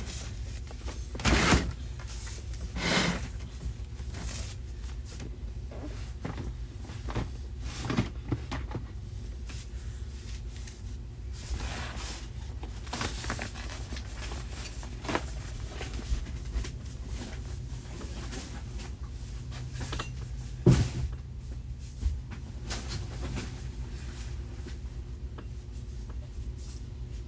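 Scattered knocks, bumps and rustles of objects being handled and put away, over a steady low hum, with the sharpest knocks about a second in and about two-thirds of the way through.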